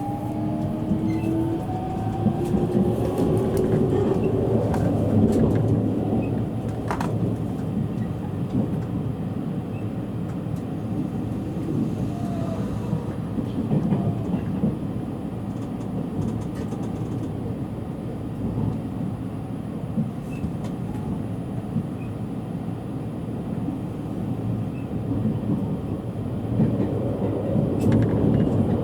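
JR East E653 series electric train running, heard from inside a motor car: a whine from the traction motor drive rising in pitch over the first few seconds, then the steady rumble of the wheels on the track, with a single sharp click about 7 seconds in.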